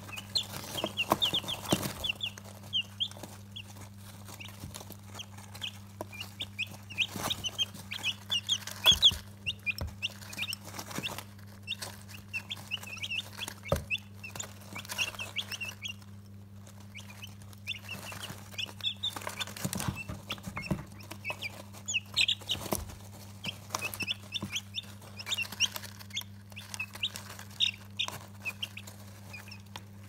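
A group of 15-day-old chicks peeping in many short, high chirps while they feed, with scattered sharp taps of beaks pecking on a china saucer. A steady low hum runs underneath.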